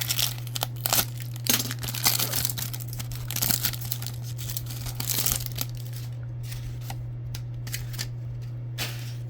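A foil trading-card pack wrapper being torn open and crinkled in the hands, with dense crackling for about six seconds, then a few lighter clicks and rustles near the end.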